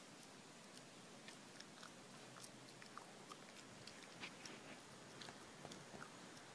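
Near silence: a faint steady hiss with scattered faint clicks and ticks, irregular, from about a second in.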